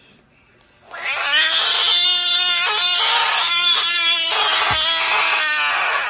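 Budgett's frog screaming after being poked on the head: a loud, long, wavering squeal that starts about a second in and runs on with a few short breaks. It is the frog's defensive distress call.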